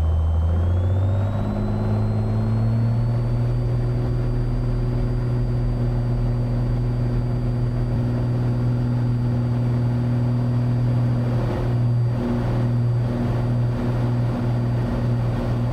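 Cessna 182T's six-cylinder Lycoming IO-540 engine and propeller going to full takeoff power. The pitch rises over the first two or three seconds as power comes up, then holds steady through the takeoff roll.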